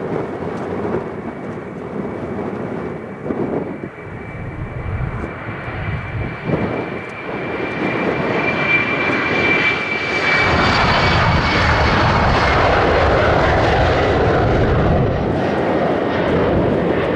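Airbus A330-300's General Electric CF6-80 turbofan engines spooling up to take-off thrust: a steady whine that grows stronger, swelling into a loud, steady roar about ten seconds in.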